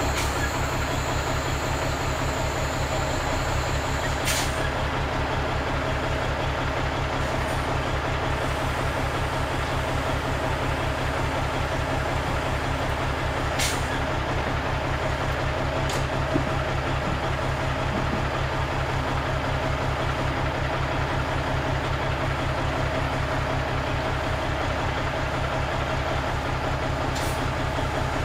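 Marmon 57P semi truck's diesel engine idling with an even low pulse. Four brief sharp clicks break in over it, several seconds apart.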